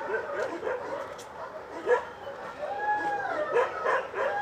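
Dogs barking and yipping in quick short calls, with a drawn-out howling whine that glides in pitch about two-thirds of the way in.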